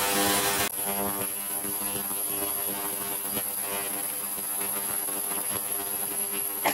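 Steady electric buzz from a jeweller's electric bath tank, with a louder hiss over it that cuts off sharply under a second in, leaving the buzz.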